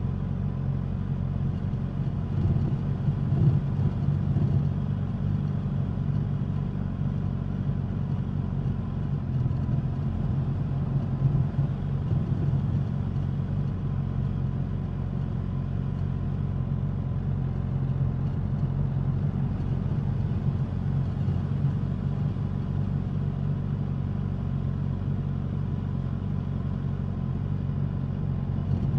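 Suzuki GSX-S1000 inline-four engine and exhaust running while the motorcycle is ridden, holding a fairly steady engine speed with small swells in loudness.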